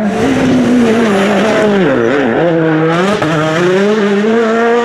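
A World Rally Car's turbocharged 1.6-litre four-cylinder engine running hard at high revs. About two seconds in its pitch drops and wavers as the driver lifts and shifts, then it climbs again in steps as the car accelerates.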